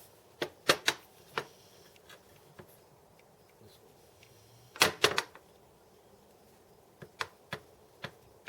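Mini lathe carriage rocking on a surface plate, its metal pads clicking and knocking against the plate in sharp taps. There are a few taps early, a louder cluster about five seconds in, and a run of taps near the end. The rocking is the sign of a wobble: the carriage's contact pads are not sitting flat.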